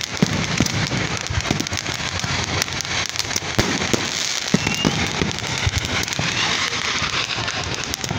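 Fireworks display: aerial shells bursting in a rapid, continuous run of bangs and crackling pops.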